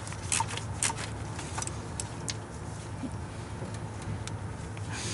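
A handful of short, sharp clicks and taps at uneven intervals from a hand wrench working the timing cover bolts on an LS engine, over a steady low hum.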